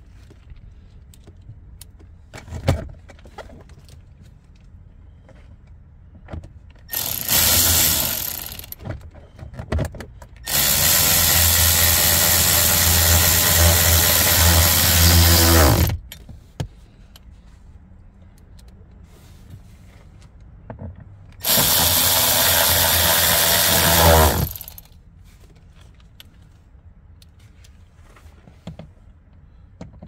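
Milwaukee cordless electric ratchet with an extension and socket whirring in three runs, a short one, a long one and a medium one, driving in the bolts of a lower dash trim panel. The long run winds down in pitch as the motor stops.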